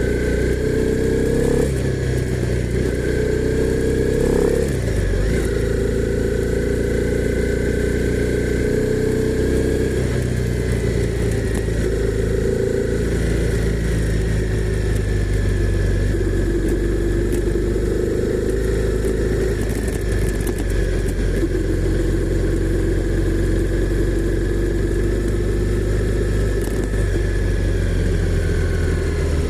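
Honda CB300R's single-cylinder engine running continuously. Its note shifts up and down in pitch several times, with abrupt changes about two and five seconds in.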